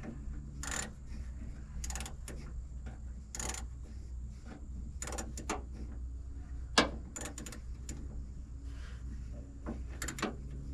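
Scattered clicks and scrapes of hand tools turning a backup-camera mounting screw inside a pickup's tailgate, with one sharper knock about seven seconds in. A steady low hum runs underneath.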